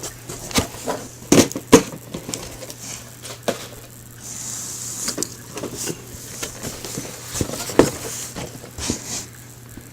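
Cardboard model-kit boxes being handled and set down: scattered light knocks and taps, with a short sliding rustle about four seconds in, over a faint steady low hum.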